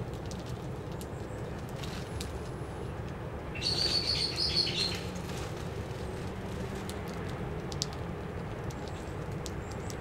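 Sparrows giving a quick, dense burst of chirping about three and a half seconds in, lasting about a second and a half, over a steady low background rumble.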